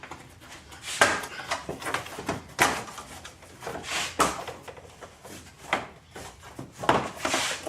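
A plastic engine-bay cover on an Audi A8 4.2 V8 being lifted and pulled off its mounts by hand. About five sharp plastic knocks and clacks sound a second or more apart, with rustling handling in between.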